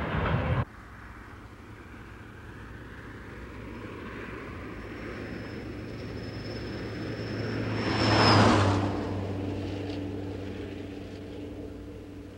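A vehicle passing on a street: its noise slowly builds, peaks about eight seconds in, then fades, with a thin high whine over the approach and a steady low hum underneath. A louder sound cuts off abruptly about half a second in.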